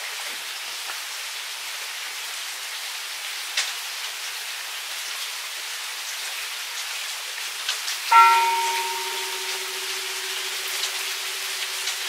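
Steady rain with scattered drips. About eight seconds in a temple bell is struck once, the single stroke that ends zazen, and rings on, its lowest tone humming through to the end.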